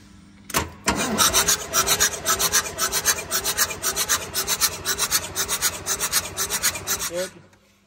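Diesel engine cranking on its starter motor with the fuel shut-off disconnected, turning over in an even rhythm for a compression test. It starts with a sharp clack and stops about seven seconds in. The compression it is cranking against is very poor, under 15 bar.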